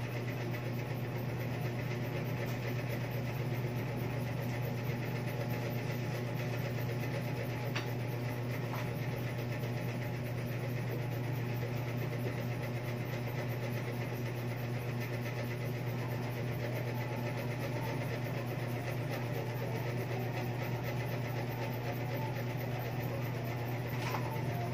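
Steady low background hum over a faint hiss, unchanging throughout, with a couple of faint ticks about eight seconds in.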